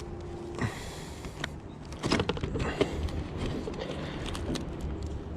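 A roofing hatchet prying at the lock of a locked briefcase: a run of small clicks, knocks and scrapes of the metal working against the case and its latch, busiest from about two seconds in.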